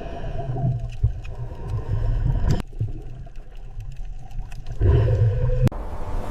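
Dolphin footage sound: a low, rumbling water noise with a few sharp clicks. It swells loudest just before the end.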